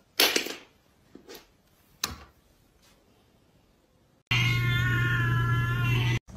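A few short knocks in the first two seconds. Then, about four seconds in, a loud, long, cat-like yowl starts suddenly, holds a nearly steady pitch for about two seconds and cuts off abruptly.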